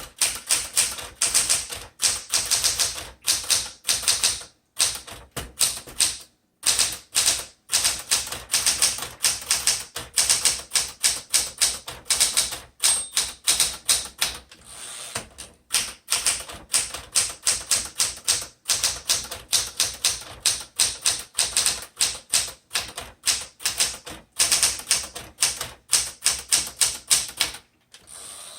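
1975 Smith Corona Classic 12 manual typewriter being typed on: rapid runs of sharp keystroke clacks as the typebars strike, broken by a few brief pauses.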